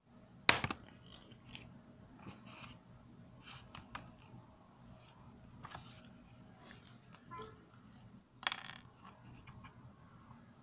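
Small steel piece from inside a correction pen clicking and clinking on a hard surface as it is handled: one sharp metallic click about half a second in, scattered light ticks, and a short clatter about eight and a half seconds in.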